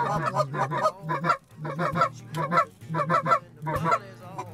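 Rapid, repeated Canada goose clucks and honks, several overlapping, as hunters call to a flock of geese working over the decoys.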